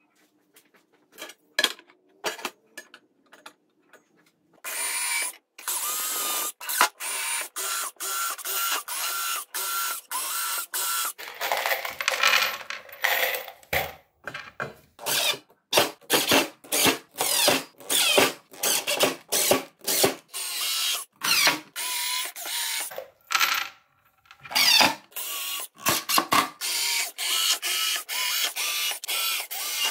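Cordless drill running in many short, abruptly stopping bursts, its motor whine rising and falling, as screws are driven through slotted steel rails into timber beams. A few light clicks come before the first burst.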